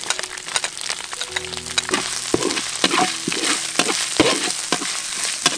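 Chili and kroeung spice paste sizzling in hot oil in a metal wok, with a metal ladle scraping and clicking against the wok as it is stirred.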